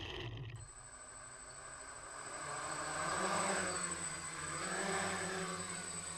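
Quadcopter's four SunnySky A2212 brushless motors and 10-inch propellers hovering: a steady buzzing hum with a thin high whine, which swells louder twice, at about three and five seconds in.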